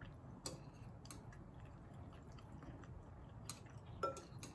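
A person chewing a mouthful of food with her mouth closed, with a few faint, scattered clicks of metal chopsticks against a ceramic bowl.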